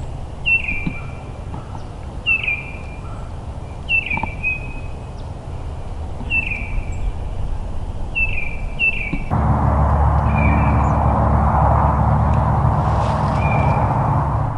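A bird calling in woodland: a short, falling note repeated about every two seconds. About nine seconds in, a louder steady rushing noise with a low hum sets in, and the bird goes on faintly over it.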